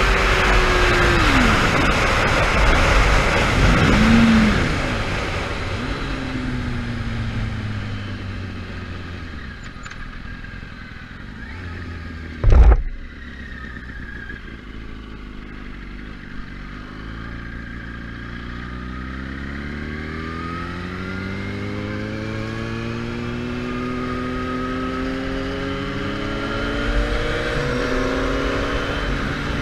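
Sport bike engine heard from on board, with wind rush: it slows and runs at low revs, then climbs steadily in pitch as the bike accelerates again. One loud sharp knock about halfway through.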